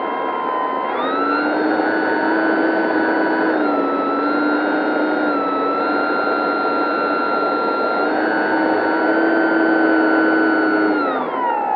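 Dynam 3720-650kV brushless electric motor and propeller of an RC model Hellcat, heard close up from on board in flight: a steady high whine that steps up in pitch about a second in, dips briefly a couple of times, and falls sharply near the end as the motor slows, over a rushing noise.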